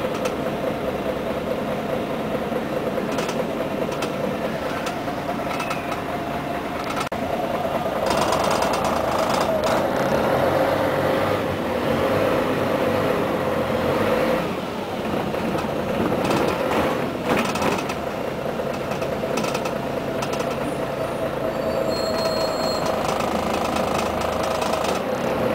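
Interior cabin noise of a Scania CN113CLL city bus with its diesel engine running steadily at first, then growing louder about eight seconds in as the bus pulls away, with a brief dip in the engine sound about halfway before it carries on.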